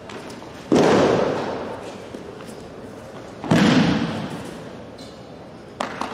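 Two heavy thuds of a judoka's body slamming onto tatami mats in breakfalls, under a second and about three and a half seconds in, each ringing on in the large hall. A lighter double knock follows near the end.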